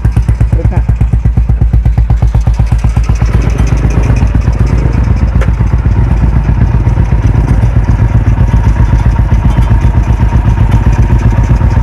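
Old diesel engine converted to run on petrol, fitted to a motorcycle, running steadily with an even, pulsing beat, with one sharp knock about five seconds in.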